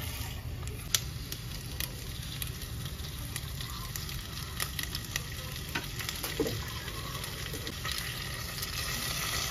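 Sliced onions sizzling in oil in a glass pot while a wooden spatula stirs them, tapping the pot with scattered sharp clicks. The sizzle grows louder near the end as liquid is poured in.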